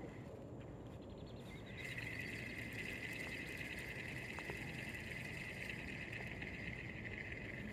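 A high-pitched, finely pulsing trill from a chorus of calling creatures in the marsh, silent for the first two seconds, then starting up again and holding steady.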